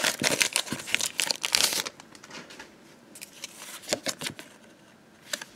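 Pokémon booster pack's foil wrapper crinkling and tearing open, a dense crackle for about the first two seconds. Then a few soft rustles and clicks as the stack of cards is drawn out of the pack.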